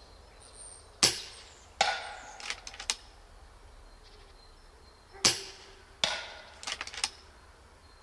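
Low-power (5.5 foot-pound) FX Dreamline .30 calibre air rifle fired twice. Each shot is a sharp crack, followed about three quarters of a second later by the smack of the pellet hitting a tin can at 50 m, the first hit with a short ring. After each hit come a few light clicks as the rifle is readied for the next shot.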